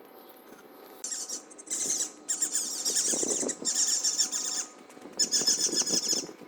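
Fast-forwarded sound at a railway level crossing: from about a second in, bursts of rapid, high-pitched chattering with short gaps, the pitch raised by the speed-up.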